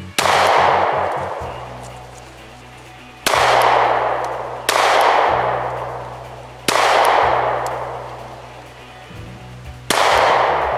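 Five shots from a Glock 43X 9mm pistol, fired at uneven intervals of about one and a half to three seconds, each trailing off slowly.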